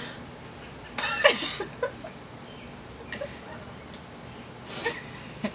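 A person giggling in short breathy bursts, once about a second in and again near the end.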